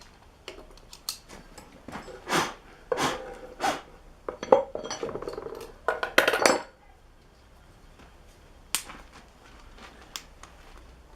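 Small hard objects being handled: a run of clinks and knocks with a brief scrape during the first seven seconds, then a single click near nine seconds.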